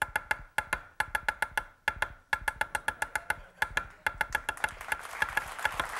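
Chinese cleaver rapidly mincing ginger on a wooden chopping block, a fast run of chops with a short metallic ring on each stroke. Audience applause starts to build near the end.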